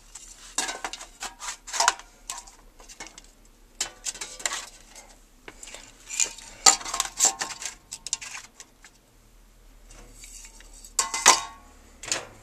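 Metal aerosol spray paint cans clinking and knocking against each other as they are handled, in irregular bunches of sharp clinks with short ringing.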